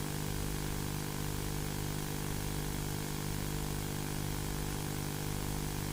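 Steady low droning hum made of several held tones, with an even hiss over it: the background drone bed of a mock emergency broadcast.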